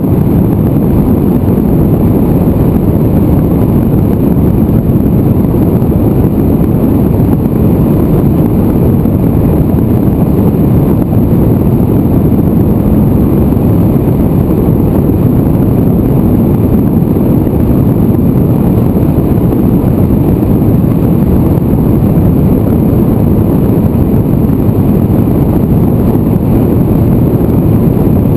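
Loud, steady rush of airflow buffeting the microphone of a camera on an aircraft in flight, a deep even noise with no clear engine note.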